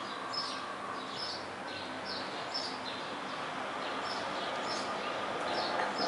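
A small bird chirping over and over, short high notes about every half second, over a faint steady tone.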